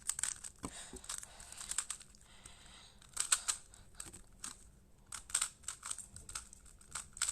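A magnetic smart Rubik's cube being turned fast during a timed speed-solve: quick runs of light plastic clicks and clacks in bursts, with short pauses between them.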